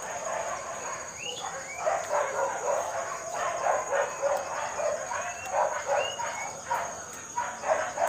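A dog barking over and over in quick runs, starting about a second in.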